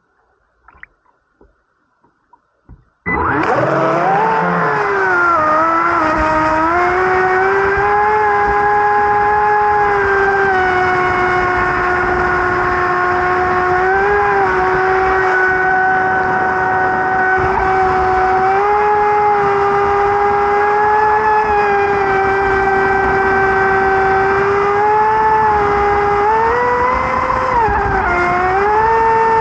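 Radio-controlled boat's motor running at speed: a loud, steady high-pitched whine with several overtones whose pitch rises and dips slightly with the throttle. It starts suddenly about three seconds in, after a few faint clicks.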